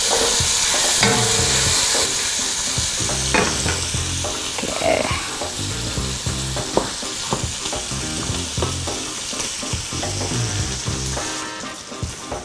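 Diced bacon sizzling steadily as it renders in a hot pan, with a utensil knocking and scraping against the pan now and then.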